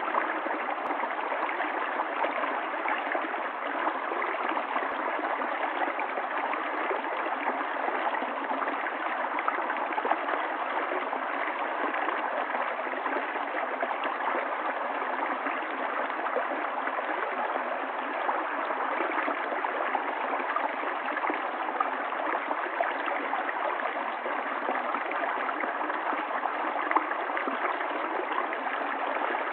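Running water of a stream, flowing steadily as an even, unbroken rush.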